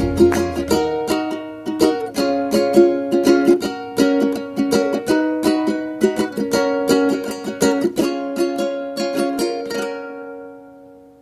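Outro background music: a light tune of quick plucked-string notes, with a low bass for the first second, fading out over the last few seconds.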